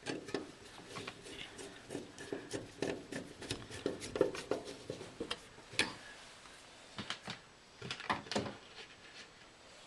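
Hands working with metal furnace parts and tools: a busy run of small clicks, taps and scrapes, with a few sharper knocks about six seconds in and again around seven to eight seconds.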